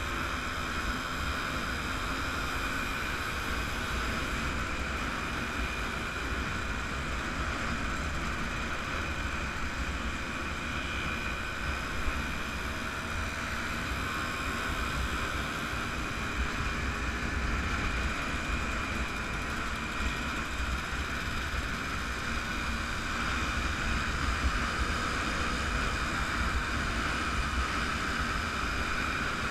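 Wind rumbling over the microphone of a camera on a moving motorcycle, with the steady running of vintage motorcycle engines underneath at cruising speed.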